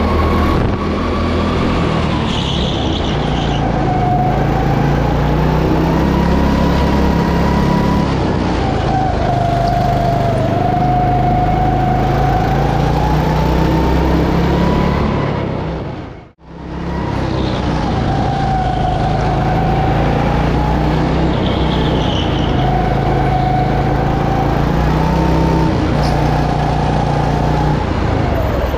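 Go-kart engine heard onboard at speed, its revs rising and falling as the kart accelerates and slows through the corners. The sound dips out and back in sharply a little past halfway.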